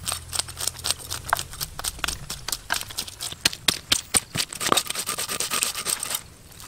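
A knife blade scraping scales off a large freshwater fish in quick repeated strokes, several a second, stopping near the end.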